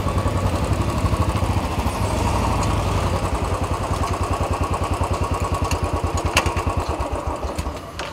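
Royal Enfield single-cylinder motorcycle engines idling with an even, low thump, cutting off near the end.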